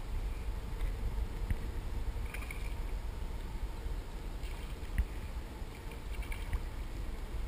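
Water lapping against a plastic sit-on-top kayak hull over a low, steady rumble, with a few small knocks, the clearest about 5 s in.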